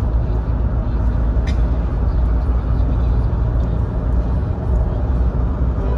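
Steady low rumble of a moving road vehicle heard from inside its cabin: tyre and engine noise, with one short click about one and a half seconds in.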